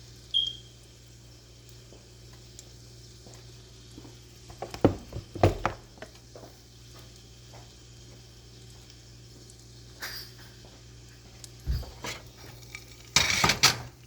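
Kitchenware being handled: a short high clink about half a second in, a cluster of knocks and clatter around five seconds in, and a louder clatter near the end, over a steady low hum.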